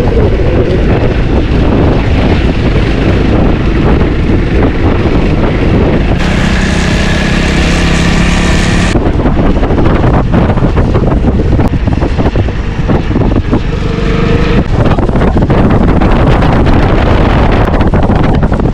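Heavy wind buffeting on the microphone and a motor vehicle running, as from a moving scooter. About six seconds in, a different, steadier stretch with a pitched hum lasts about three seconds.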